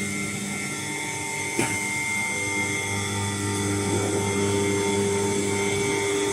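Vacuum pump of a double-chamber vacuum packing machine running steadily as it pulls the air out of the chamber, a steady mechanical hum, with one sharp click about a second and a half in.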